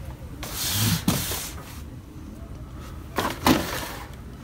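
Phone handling noise: fabric rustling against the phone's microphone, with a few short knocks, the loudest about three and a half seconds in.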